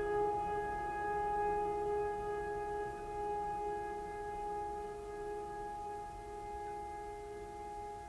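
A sustained ringing tone with several overtones, slowly fading away.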